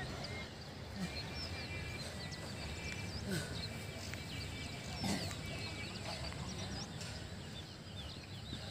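Many small birds chirping over a low, steady background rumble.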